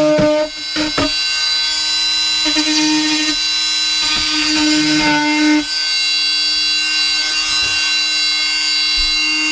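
Electric power tool running with a steady whine, cutting the mounting hole, with a brief dip about half a second in and another near six seconds.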